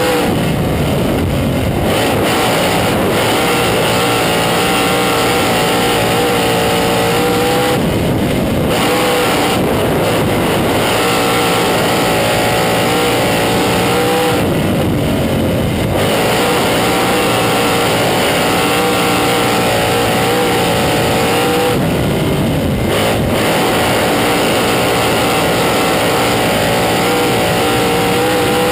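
A 360 sprint car's V8 engine at racing speed, heard from inside the cockpit. The note is loud and high for most of the time and drops briefly about every six to eight seconds as the driver lifts for the turns.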